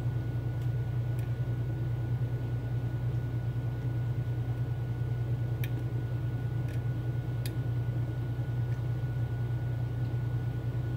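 A steady low hum with a thin high whine, from an unseen machine or fan in the room. A few faint clicks, clearest about halfway through and again a couple of seconds later, come from picking tools working inside a Mul-T-Lock Interactive dimple lock.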